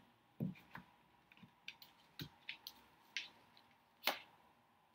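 Tarot cards being handled and shuffled: faint, irregular light clicks and taps, with a sharper one about four seconds in.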